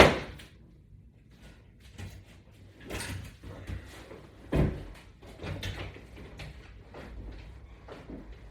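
Knocks and clacks of resistance-band straps and their clips being latched onto a wall-mounted latch bar attachment system. A sharp bang right at the start is the loudest, another heavy knock comes about four and a half seconds in, and lighter clatter falls between them.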